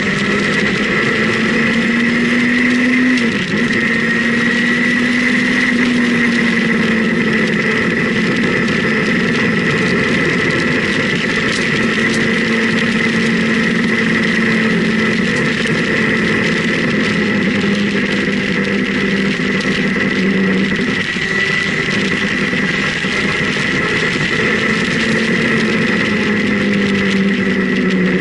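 Motorcycle engine running at a steady cruise with wind rushing over the camera. The engine note drifts gently up and down, dips briefly about three seconds in, and falls near the end.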